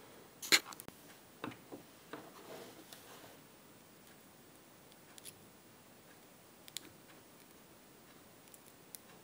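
Handling noise from a small circuit board and its wire leads turned in the fingers close to the microphone: sharp clicks and short scrapes, the loudest about half a second in, a cluster over the first three seconds and then a few scattered ticks.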